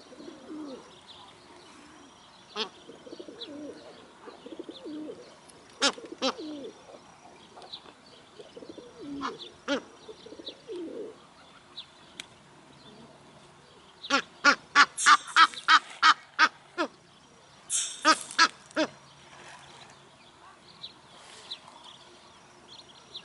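Egyptian geese calling: soft, low calls in the first half, then a loud rapid series of harsh honks about fourteen seconds in, roughly four a second, and another short burst a few seconds later.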